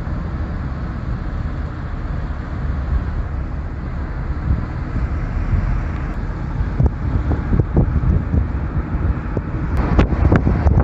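Car driving on a road: a steady low rumble of tyre and engine noise, with a few sharper knocks near the end.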